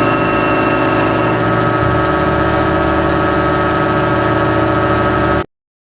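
Steady machine drone with many held tones, like an idling engine; its low end shifts about two seconds in, and it cuts off suddenly near the end.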